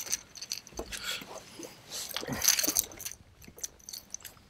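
Small clicks and rustles of a bass being unhooked with pliers in a landing net, with a louder rustle about two and a half seconds in.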